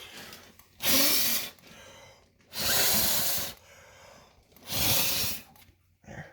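Three hard puffs of breath, about a second each, blown into an i3 smoke detector's sensing chamber to clear the test smoke so the detector can be reset.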